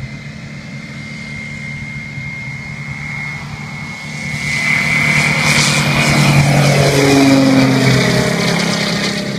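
Experimental DHC-2 Beaver, powered by a TRACE big-block V8 aircraft engine, running at full takeoff power. The propeller and engine drone grows much louder from about four seconds in as the plane lifts off and passes overhead. The pitch drops as it goes by, and the sound fades near the end.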